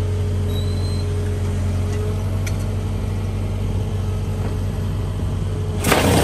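Excavator's diesel engine running steadily while it holds a piling upright. Near the end a loud rushing noise starts suddenly.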